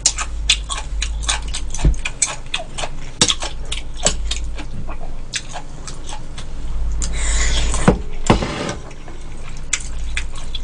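Close-miked eating of beef seaweed soup: many quick, wet smacking clicks of chewing. About seven seconds in come two noisy slurps as soup is drunk from the bowl.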